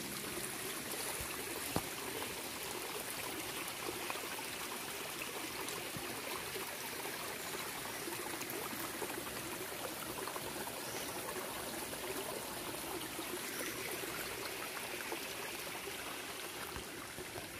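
Small woodland stream trickling and babbling over rocks, a steady, even run of water.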